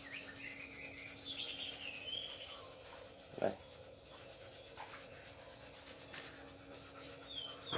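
Steady high trill of crickets, with a bird's short falling chirps about a second in and again near the end. One soft knock about three and a half seconds in.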